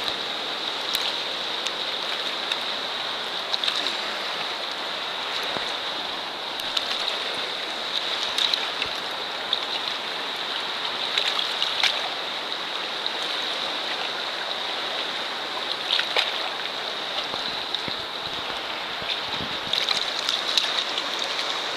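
River water running and lapping against a rocky bank: a steady rushing with small splashes and drips scattered through it.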